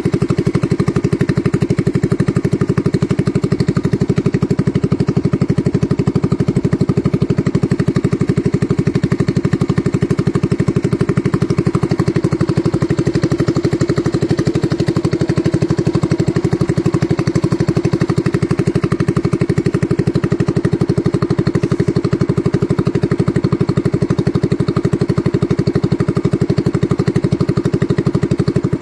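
A boat engine running steadily under way, with a fast, even pulsing beat.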